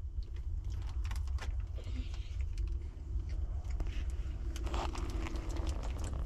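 Crinkling of a plastic snack wrapper and small handling clicks as a child eats, with a thicker burst of crinkling about five seconds in, over a steady low rumble.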